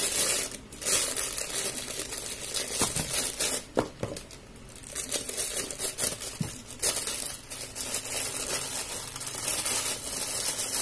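Clear plastic bag crinkling as it is handled and opened to get a microphone cable out, with a brief lull about four seconds in.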